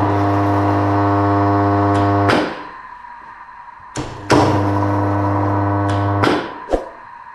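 Three-phase induction motor on a direct-on-line starter being switched on and off with push buttons. Each start comes with a contactor click and a steady electrical hum with a strong low drone, and each stop is sudden, with another click. The motor runs twice: once until about two seconds in, and again from about four to six seconds in.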